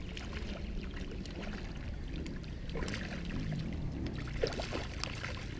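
Water splashing and sloshing as a hooked sea bass thrashes at the surface while it is played in, with short splashes coming and going over a steady low rumble.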